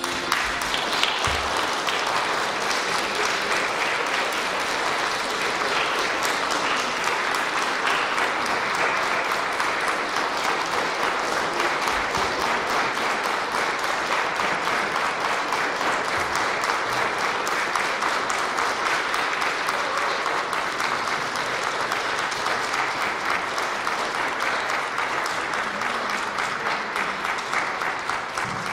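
Audience applause, a dense, even clapping that starts abruptly, holds steady for nearly half a minute and thins out near the end.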